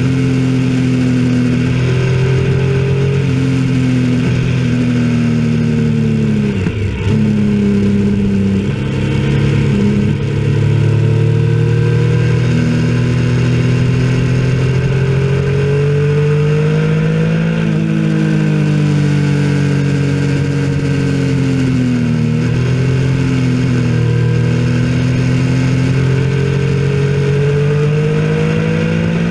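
Motorcycle engine running hard, its pitch rising and falling continuously through a lap. There are a few sudden sharp drops in pitch that climb back up: one about a quarter of the way in and two more past the middle.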